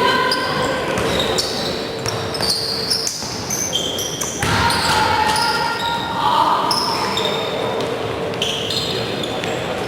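Basketball game sounds in a gym hall: a ball bouncing and sneakers squeaking on the court in short high chirps, with voices echoing in the hall.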